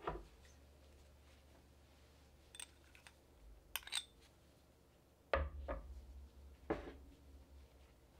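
Metal spoon clinking and knocking against a small bowl and a glass mixing bowl while scraping crushed garlic onto raw potato wedges. The handful of separate clinks includes a pair with a bright ring, and two louder knocks fall in the second half.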